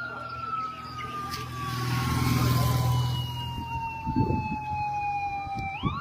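Traffic police siren wailing: one tone falls slowly in pitch over several seconds, then sweeps quickly back up near the end. A vehicle engine rumble swells about two seconds in.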